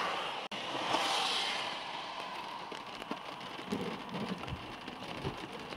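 Rain and small hail ticking on a car's windscreen and roof over wet-road tyre hiss, which fades over the first two seconds. A faint low rumble of distant thunder comes about four seconds in.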